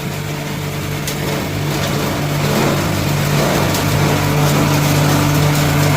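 Coconut-husk grinder (G-60 type shredder) driven by a 15 HP three-phase electric motor, running steadily with a constant hum over a rushing grinding noise. It grows slightly louder over the first two seconds.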